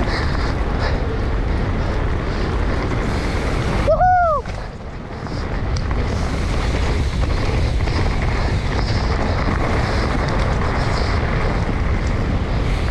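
Wind rushing over the microphone with the rumble and rattle of a mountain bike riding fast down a dirt singletrack. About four seconds in, a short pitched sound rises and falls.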